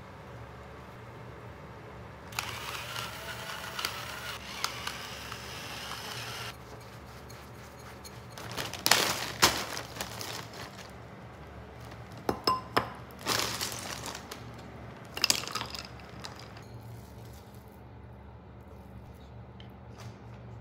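Kitchen prep sounds: milk pouring into a glass bowl for a few seconds, then frozen shijimi clams clinking and rattling in a crinkling zip-top plastic bag in three short clusters of sharp clicks.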